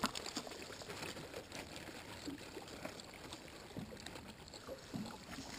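Faint water lapping against a bass boat's hull, with a few soft taps.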